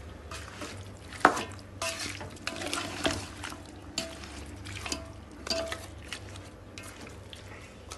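Wooden spatula stirring chicken pieces in a large metal cooking pot, scraping and knocking against the pot's sides; several knocks leave a short metallic ring, the loudest about a second in.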